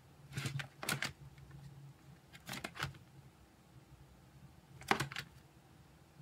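Clear plastic sleeve pages of a ring binder crackling as they are turned, in three short bursts of crinkly clicks about two seconds apart.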